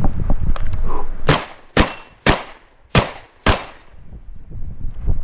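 Shotgun fired five times in quick succession, shots about half a second apart starting a second in, as a competitor engages a stage after the start signal. Handling noise comes before the first shot.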